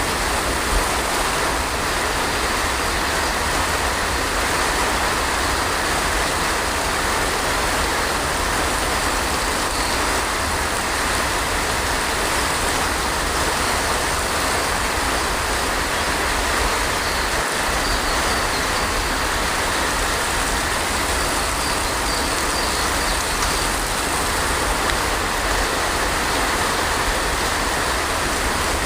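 Heavy rain falling steadily: an even, unbroken hiss with no distinct drops or thunder standing out.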